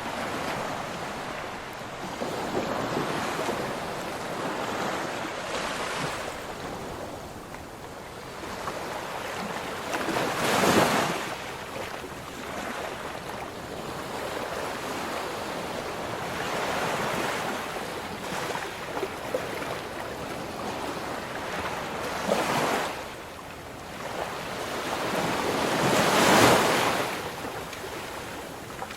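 Ocean waves breaking and washing up the shore in slow swells. Louder breakers come about a third of the way in and twice near the end, the last one the loudest.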